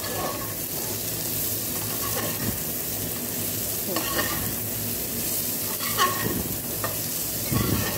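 Chopped onions sizzling in hot ghee in an aluminium pressure cooker, stirred with a flat spatula that scrapes against the pot every couple of seconds.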